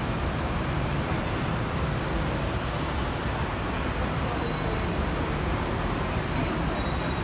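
Steady background noise of a crowded elevated Skytrain station platform: a constant low rumble of road traffic with a faint murmur of people's voices.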